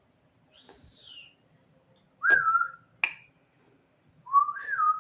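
Javan myna (jalak kebo) whistling a few separate notes. A high falling whistle comes about half a second in, then a level whistle starting with a sharp click a little past two seconds, another click about a second later, and a rising-then-falling whistle near the end.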